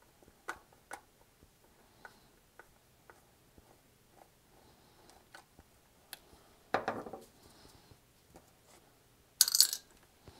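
Light clicks and taps of a screwdriver and the plastic control head of an ICOM IC-706MKII being handled while the screws in its back are taken out. A short rattling clatter comes about two-thirds of the way in, and a bright metallic clink, the loudest sound, comes near the end.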